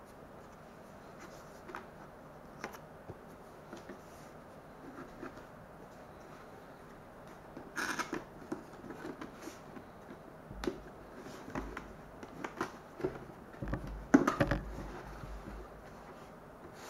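Cardboard drone box being handled and opened on a wooden tabletop: scattered taps, scrapes and rustles of the packaging, with busier handling about eight seconds in and again around fourteen seconds in.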